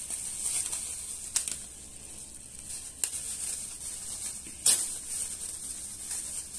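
Clear plastic bag crinkling and rustling as fingers peel open its taped seal, with sharp crackles about a second and a half in, at three seconds, and a louder one near five seconds, over a steady background hiss.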